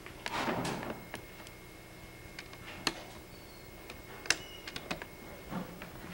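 Handling noise: a short rustle about a third of a second in, then scattered light clicks and knocks, over a faint steady high-pitched tone.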